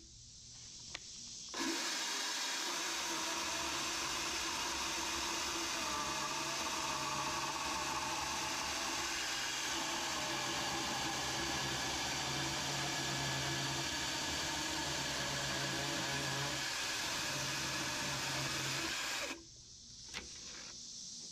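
DeWalt Flexvolt 60 V battery chainsaw running steadily as it cuts a slab from a small log in an Alaskan chainsaw mill. It starts about a second and a half in and stops a couple of seconds before the end, after which there are only a few light clicks.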